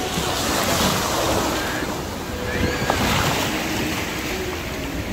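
Small sea waves washing up onto a sandy beach: a steady rush of surf that swells about a second in and again around three seconds.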